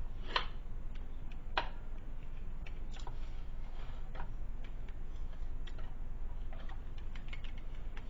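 Small scattered clicks and ticks of hand tools working a wall switch in a steel electrical box: pliers curling wire around the terminals and a screwdriver tightening the terminal screws. The two sharpest clicks fall in the first two seconds, over a low steady hum.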